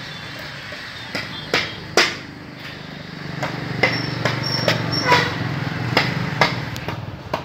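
Hammer striking steel parts: about a dozen sharp metallic knocks, some with a brief ring, over a low steady engine hum that grows louder about three seconds in.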